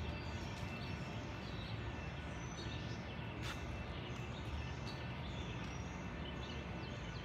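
Steady outdoor background noise with small birds chirping, and a single sharp click about three and a half seconds in.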